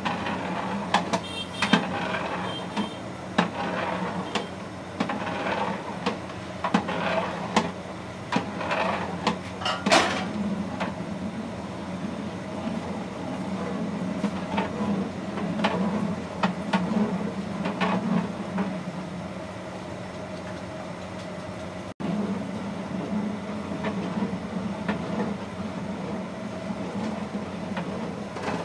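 A long metal ladle knocking and scraping against the sides of a large metal cooking pot as gravy is stirred, in irregular clacks that come thickly over the first ten seconds and more sparsely after. A steady low hum runs underneath.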